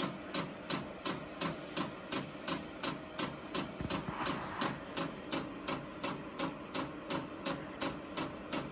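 The VEVOR 8 kW diesel heater's fuel dosing pump ticking steadily, about three clicks a second, over a faint hum, while it primes the fuel line.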